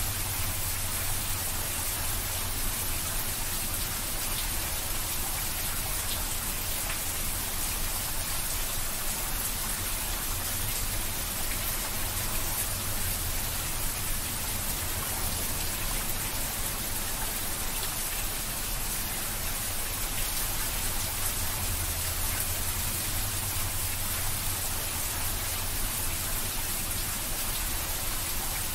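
Steady rain falling, an even hiss with scattered tiny ticks of single drops.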